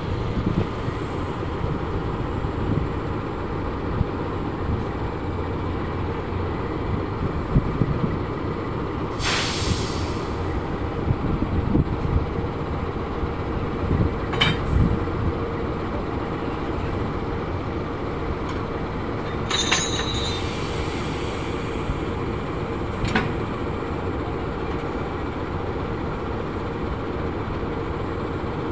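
Diesel-electric engine of a KAI CC206 locomotive running steadily close by, a low rumble with a constant hum. A short hiss of air comes about nine seconds in, a brief hissing squeal a little after the middle, and a few sharp metallic clicks, as the coupler and brake hose between the locomotive and a flat wagon are worked by hand.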